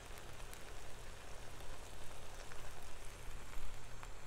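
Smash burger patties and buns sizzling steadily on a hot Blackstone flat-top griddle, with a few small pops of fat.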